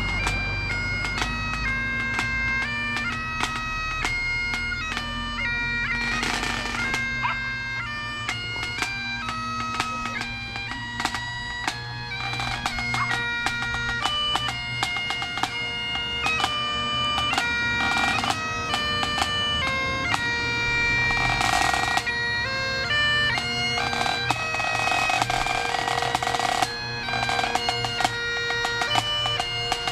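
Great Highland bagpipe playing a tune over its steady drones, with a drum struck in time alongside.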